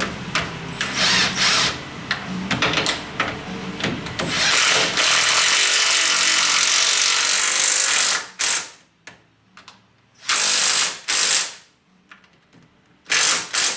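Power tool working on the steering rack's fasteners: clicks and short runs at first, then one steady run of about three and a half seconds, then several short bursts near the end.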